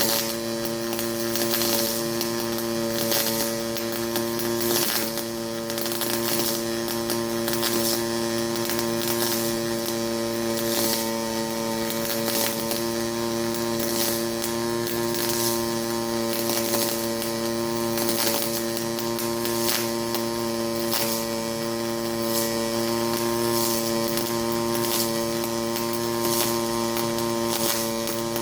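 Pulse MIG welding arc from an HTP Pro Pulse 220 running 0.030 wire: a steady buzz with frequent crackles.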